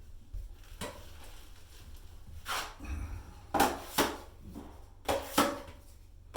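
Short scrapes and knocks of a tool working old drywall joint compound in a bucket, several coming in quick pairs.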